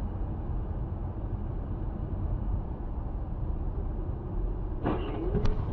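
Steady low rumble of a car on the road, heard from a dashcam. Near the end comes a brief sound with a wavering tone and a sharp click.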